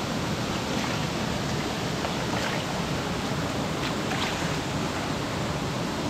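Waterfall pouring, a steady rush of falling water heard close by.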